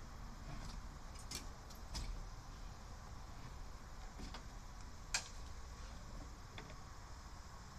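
Scattered light clicks and knocks of hands working the door window glass and its frame on a truck door, a few at a time, with one sharper click about five seconds in.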